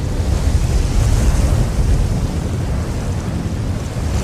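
Sandstorm wind sound effect: a loud, steady rushing of wind, heaviest in the low end, swelling slightly about a second in.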